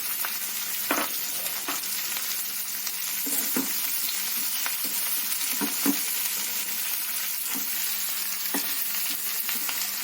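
Green chilli pieces sizzling in hot oil in a kadai, a steady frying hiss, with short scrapes and knocks from a spatula stirring them every second or so.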